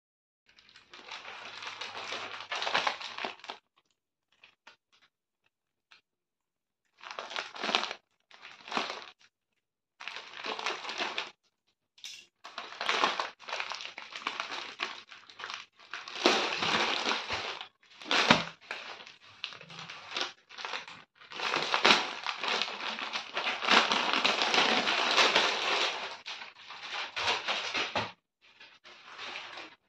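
Plastic packaging crinkling and rustling as hands handle and open a plastic courier bag, in irregular stretches broken by short silent gaps.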